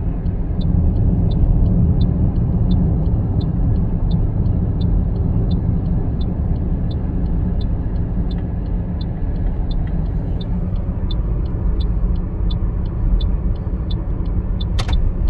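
Car cabin noise while driving: a steady low rumble of engine and tyres. A light, even ticking runs through it about three times a second, and there is a single sharp click near the end.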